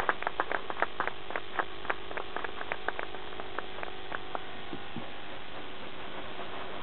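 Scattered applause from a small audience, separate claps about four or five a second that thin out and stop about four and a half seconds in, over a steady electrical hum.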